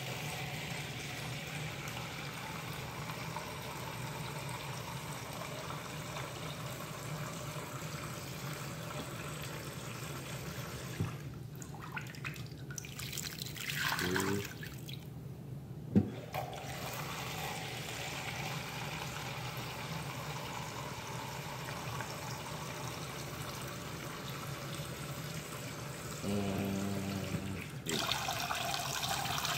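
Water running from a kitchen tap to fill a measuring cup, steady for about ten seconds and again through most of the second half. In the break between, a cupful is poured into a pot of ribs, and a sharp knock follows.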